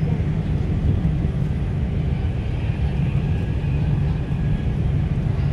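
Steady low rumble of the electric Tilt Train's carriage at speed, heard from inside the passenger cabin.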